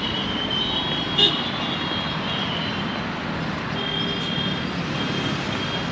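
Steady city road-traffic noise from vehicles on the move, with a short sharp sound about a second in.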